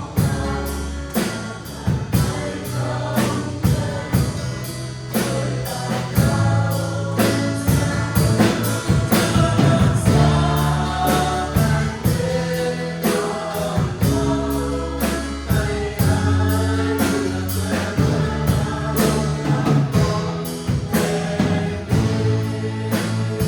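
Worship song sung by a group of voices over a band with bass and a steady drum beat.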